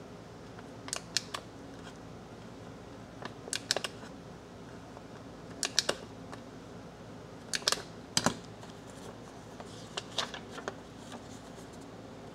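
Handheld perforating staple-less stapler clicking as it is squeezed and released to crimp sheets of paper together along an edge. The clicks come in five short clusters of two or three, a couple of seconds apart.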